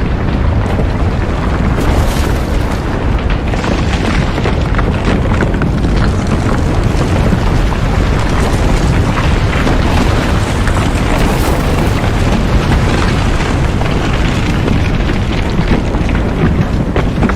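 Earthquake sound effect: a loud, continuous low rumble with crackles throughout.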